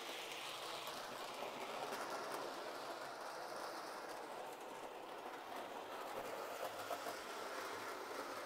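Hornby OO-gauge Emily model locomotive running on track with its coaches: a steady, quiet whir of the small electric motor and wheels rolling on the rails, with a few faint clicks.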